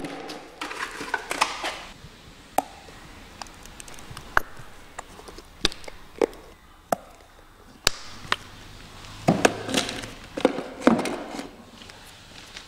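Scattered sharp knocks and taps of hard objects, irregular, busier in the first couple of seconds and again about three-quarters of the way through, with single clicks between.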